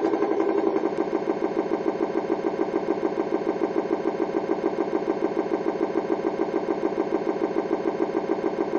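An engine idling steadily with an even, regular pulse.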